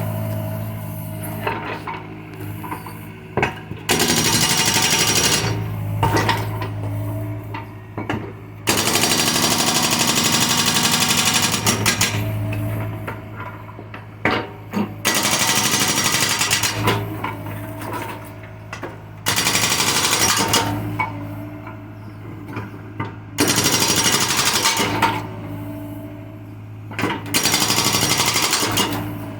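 Excavator-mounted hydraulic breaker hammering in several bursts of a few seconds each, a rapid pounding. The excavator's diesel engine hums steadily between bursts.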